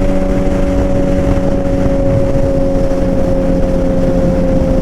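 2008 Yamaha R1 inline-four engine running at a steady highway cruise, holding one pitch, with wind rushing over the helmet microphone.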